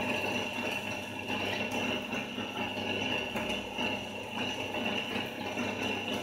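Pellet-making machine built on a meat grinder running steadily as it grinds and presses out animal-feed pellets, with a constant high whine and a low hum under a grainy crackle.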